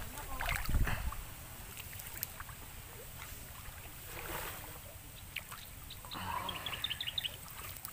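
River water sloshing and splashing as a person wades chest-deep through it, with a low rumble underneath and a few louder splashes.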